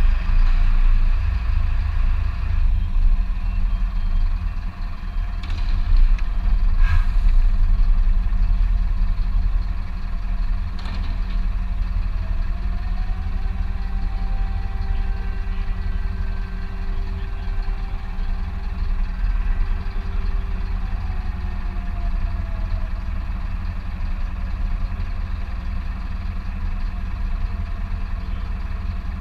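Fire tanker truck's diesel engine running with a steady heavy rumble. About twelve seconds in, a faint fire-alarm siren wails up, holds one tone for several seconds, then winds down: the siren calling out the volunteer firefighters.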